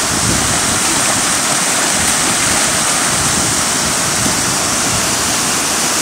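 Steady rushing of small waterfalls spilling over rocks into a pool, a loud even water noise.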